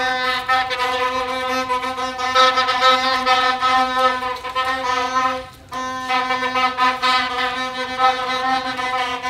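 Plastic stadium horn (vuvuzela-type) blown in long, steady single-note blasts, with one short break about halfway through.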